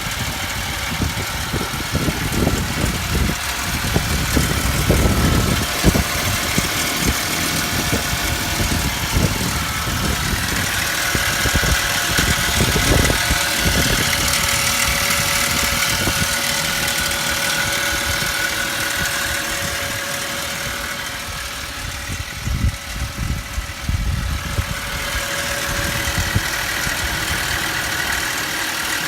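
BMW 520 E39's 2.0-litre straight-six engine running steadily, with a steady high-pitched tone over the engine sound. This is the extraneous engine noise the owner cannot identify.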